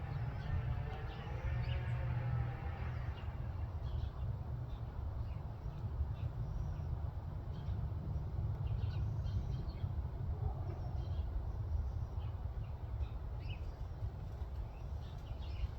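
Small birds chirping in short, scattered calls over a steady low rumble, with a lower wavering call in the first few seconds.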